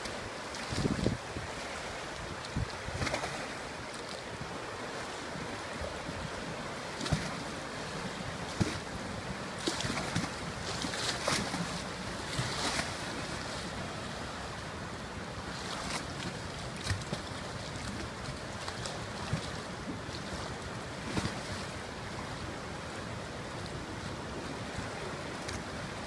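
A river running high after typhoon rain, a steady rush of water, with irregular gusts of wind buffeting the microphone.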